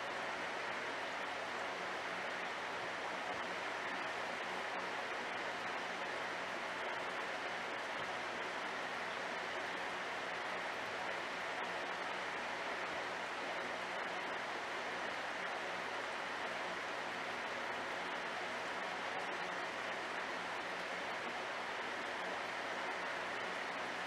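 Aquarium filter running: a steady, even rush of moving water with a faint low hum under it.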